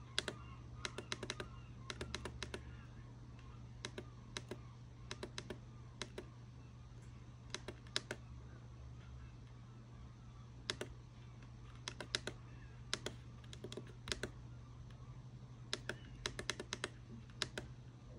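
Small tactile buttons on a Viofo A119 dashcam clicking under a thumb. The presses come irregularly, sometimes singly and sometimes several in quick succession, as its settings menus are scrolled through, over a low steady hum.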